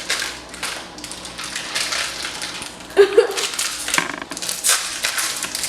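Plastic packaging crinkling and tearing as a small wrapped toy packet is opened by hand, in irregular rustles and crackles.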